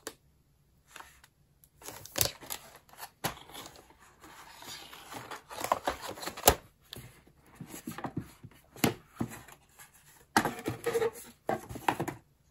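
Unboxing handling noise: cardboard box parts and a paper insert rustling and scraping under the hands, with scattered sharp clicks and knocks, the sharpest about six and a half seconds in.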